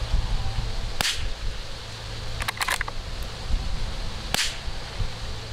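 Two sharp .22LR rifle shots from a Tikka T1X bolt-action, one about a second in and one near the end. A quick run of metallic clicks between them is the bolt being worked. Wind rumbles on the microphone.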